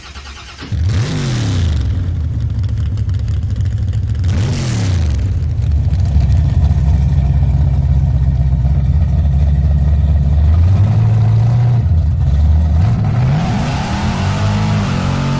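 A car engine revving, its pitch sweeping up and down about three times and held high in between, with two short bursts of hiss alongside the first two revs.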